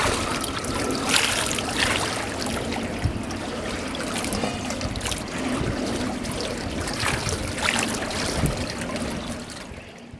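Water trickling and splashing, fading out near the end.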